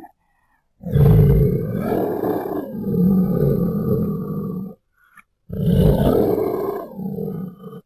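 Deep, rough monster growl sound effect, sounded twice: one long growl of about four seconds, then after a short break a second of about two and a half seconds.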